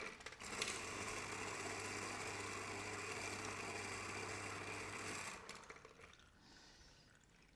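Sage electric citrus press running, its motor spinning the reamer cone while a lime half is held down on it under the lever arm: a steady whirring hum for about five seconds, then it stops.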